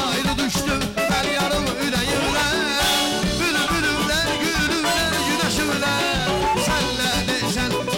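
Live Azerbaijani wedding band playing fast dance music: an ornamented clarinet melody over keyboard and drum kit with a steady beat, and a singer's voice on the microphone.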